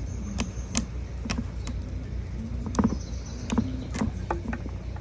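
Scottish Fold cat snoring in its sleep: a low, steady drone with snore tones that rise and fall, broken by several sharp clicks.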